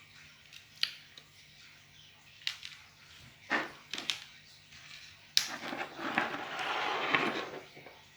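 Fishing tackle being handled while rigs are made up: a few light clicks and taps, then about three seconds of rustling with small clicks near the end.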